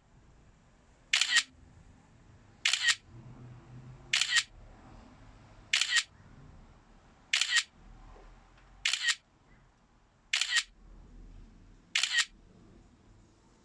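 The DJI Fly app's camera shutter sound, a short double click repeating about every second and a half, eight times. Each click marks one frame of a wide-angle panorama being shot by the DJI Mini 2.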